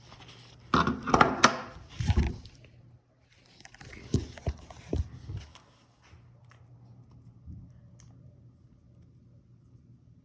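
Rustling of packaging and knocks of a plastic powerline adapter being taken out of its box, in two spells with a few sharp clicks in the second, then only a faint steady hum.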